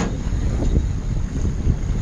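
Wind buffeting the microphone on an open boat at sea: a low, uneven rumble with a faint hiss above it.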